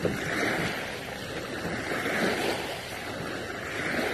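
Small waves washing onto a pebbly shore, swelling and ebbing every couple of seconds, with wind on the microphone.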